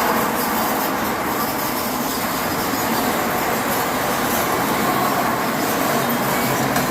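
Steady vehicle running noise, even and unbroken, with no clear beat or event.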